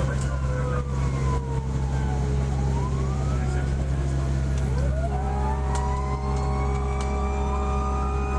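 Fire engine siren wailing, its pitch rising and falling in slow sweeps, over the truck's steady low engine drone. A second siren tone glides down and then winds back up, and about five seconds in a steady blaring chord joins in.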